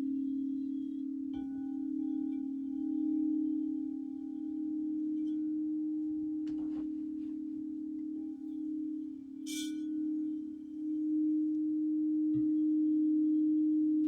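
Crystal alchemy singing bowls ringing: a steady low tone that swells and wavers, with a higher ringing tone joining about a second and a half in, and a short bright tinkle about halfway through.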